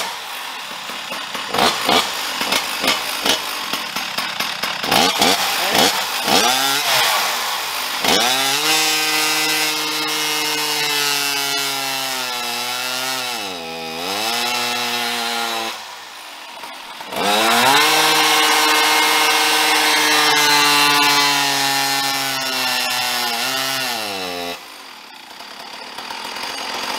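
Ported Stihl MS460 Magnum two-stroke chainsaw with an expansion-chamber pipe, running on a chainsaw dyno: short throttle blips for the first several seconds, then two long full-throttle pulls as the dyno loads it, each dropping back off, the first dipping briefly in pitch about halfway through. A poorly ported cylinder, and the pipe is being tried to win back power on the dyno.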